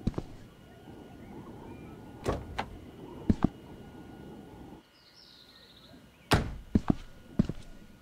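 A series of irregular knocks and thuds, in two clusters, over a low steady noise that drops away about five seconds in.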